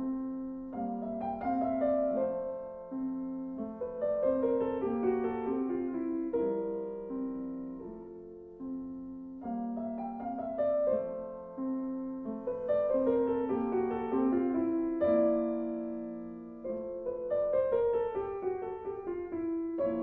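Background piano music: a slow, gentle melody of descending note runs, with the phrase starting over about halfway through.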